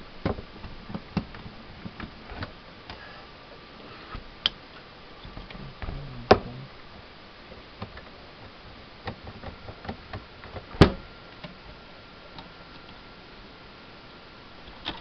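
Scattered clicks and knocks of an iMac G3's CD drive and its plastic and metal mounting being worked by hand as it is pushed and pulled to slide it free, with two louder knocks about six and eleven seconds in.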